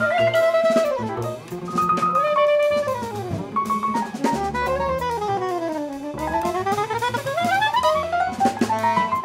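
Free-jazz quartet playing live: soprano saxophone lead over busy drum kit, double bass and piano. Midway the saxophone slides down in pitch and climbs back up in one long swoop.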